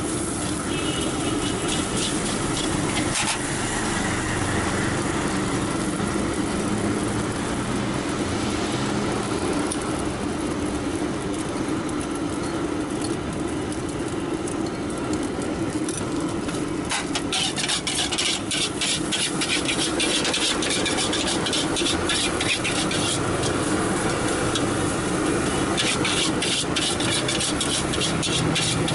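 Fried rice being stir-fried in a metal wok, the spatula scraping and clattering against the pan in quick runs, most of them in the second half. Steady engine and traffic noise runs underneath.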